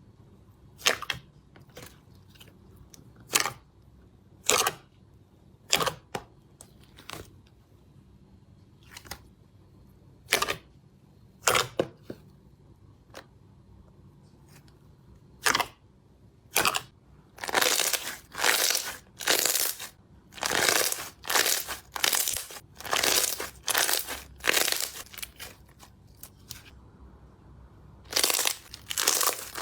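Slime being handled, making irregular sharp pops and crackles. They are sparse at first, then come as a quick run of longer crackling squishes in the second half, with a last cluster near the end.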